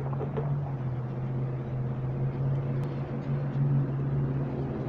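Diesel locomotive engine running with a steady low drone, its pitch held level with small swells in loudness.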